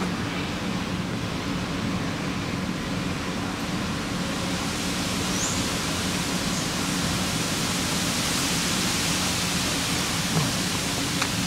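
Steady rushing background noise with a low hum underneath, the hiss swelling a little in the middle, and a few faint clicks near the end.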